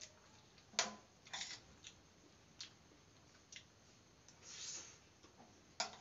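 Quiet eating sounds of rice eaten by hand: scattered chewing and lip-smacking clicks, with a sharper click about a second in and again just before the end, and a short breathy rustle a little after halfway.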